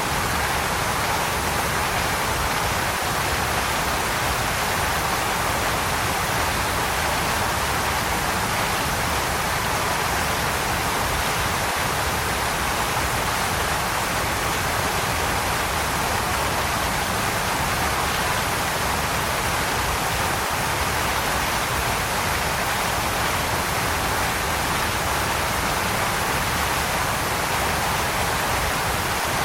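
Waterfall: water pouring and splashing in a steady, unchanging rush.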